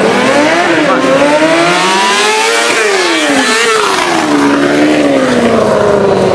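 Stunt motorcycle engine revving hard as the bike is ridden past, its pitch climbing and falling several times and peaking about halfway through.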